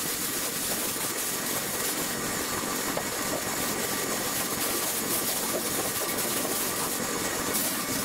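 Air spray gun hissing steadily as it sprays primer onto bare sheet-metal panels, with a faint steady whine under the hiss.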